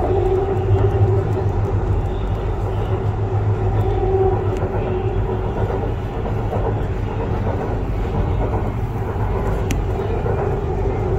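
Hyderabad Metro train running between stations, heard from inside the carriage: a steady low rumble with a hum that weakens midway and comes back near the end.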